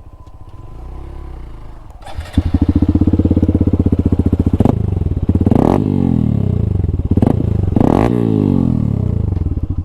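Motorcycle fitted with an aftermarket full-system single-pipe exhaust, idling, then revved hard from about two seconds in. It is held at high revs, cuts back, and is blipped up and down a few more times.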